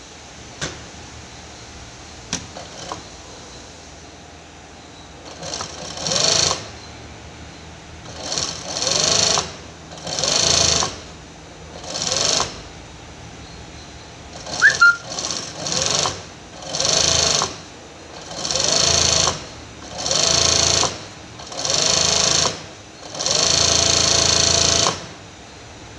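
Industrial sewing machine stitching in short runs of about a second each, starting and stopping about a dozen times as the fabric is fed, the last run the longest.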